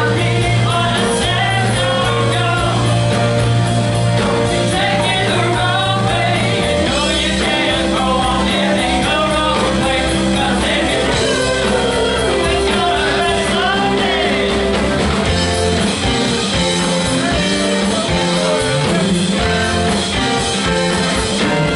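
Live rock band playing with lead vocals: electric guitars, bass, keyboards and two drum kits.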